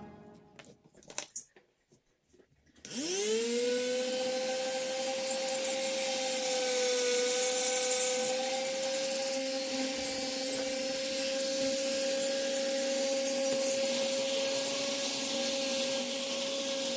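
A small electric power tool spins up about three seconds in, then runs steadily with a high, even whine while working wood.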